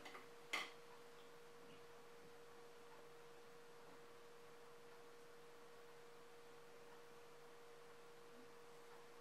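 Near silence: room tone with a faint steady electrical hum on one pitch, and a single short click about half a second in.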